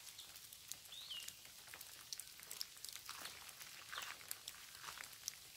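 Faint, scattered patter and drips of rain falling on leaves and the ground, with one short bird chirp about a second in.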